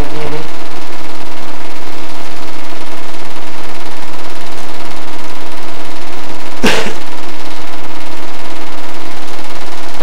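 8mm film projector running: a loud, steady mechanical clatter with a constant hum, and one sharp click about two-thirds of the way through.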